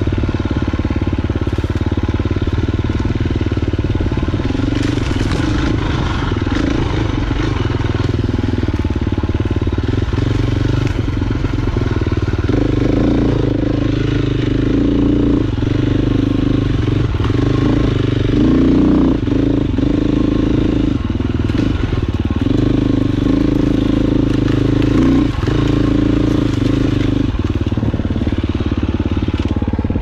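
KTM 350 XC-F dirt bike's single-cylinder four-stroke engine running under load on a trail ride, the revs rising and falling with the throttle. It gets louder from about twelve seconds in, with several short dips where the throttle is rolled off, and eases again near the end.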